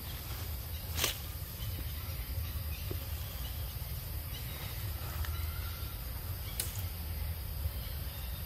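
Forest ambience: a steady high insect hum over a constant low rumble, broken by two sharp clicks, about a second in and again about six and a half seconds in.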